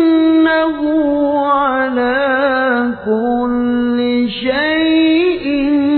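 A male qari reciting the Quran in the melodic murottal style, holding long ornamented notes in a high register with two brief breaths.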